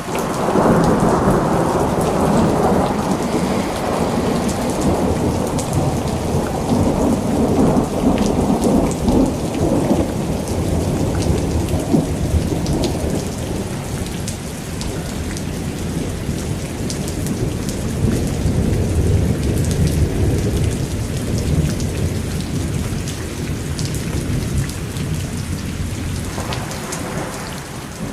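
Steady rain with a continuous low rumble of thunder beneath it, heaviest over the first half and easing later, with scattered sharp drop ticks.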